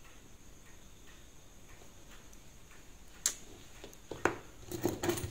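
Faint ticking from an opened Seiko 5 automatic watch movement held in a movement holder. In the last two seconds come several sharp clicks and knocks as the movement and holder are handled.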